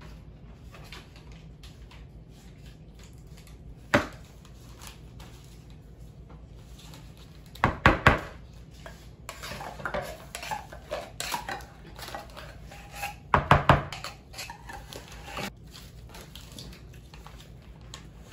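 Metal spoon clinking and knocking against an orange plastic bowl and a tin can of condensed milk, then stirring and scraping through fruit in the bowl. The knocks are scattered, with the loudest clusters a little before halfway and about three quarters through.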